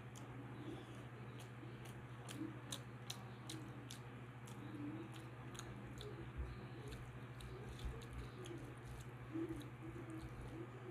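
Close-miked chewing of soft rice, dal and mashed potato eaten by hand, with many quick wet mouth clicks and smacks. Rice is also squeezed by the fingers on the plate, over a steady low hum.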